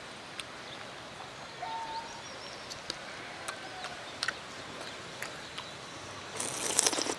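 Outdoor rural background with faint bird chirps and a few scattered sharp clicks, then a short burst of rustling noise near the end.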